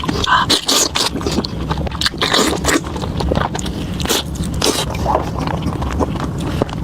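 Close-miked eating: a person biting and chewing lamb tripe wrapped around lamb brain, with many short, irregular mouth clicks and smacks.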